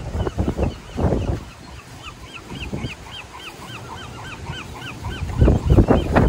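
A gull calling a quick run of about a dozen short rise-and-fall notes, about four a second, in the middle seconds. Wind and handling rumble on the microphone at the start and again, loudest, near the end.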